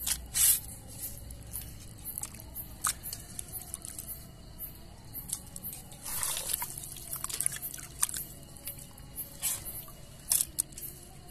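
Raw chicken pieces washed by hand in steel bowls of water: squelching, splashing and dripping, with scattered sharp clicks against the steel and a longer splash about six seconds in.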